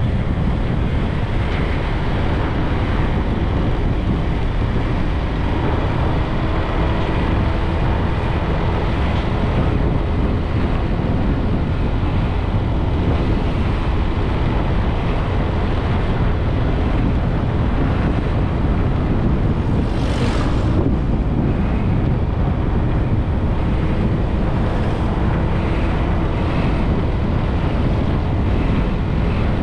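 Wind buffeting the microphone on a moving motorbike, with a steady low engine hum under it, as it rides along a road. A brief hiss about twenty seconds in.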